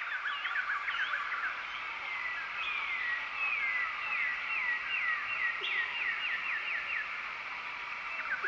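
Birds calling over a steady high background chorus. One bird repeats a short falling whistle two or three times a second through the middle, among scattered chirps.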